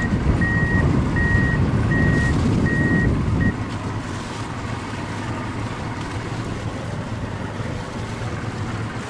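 John Deere wheel loader's diesel engine running with its reversing alarm beeping about every three-quarters of a second. About three and a half seconds in, the beeping stops and the engine sound drops suddenly to a quieter steady rumble.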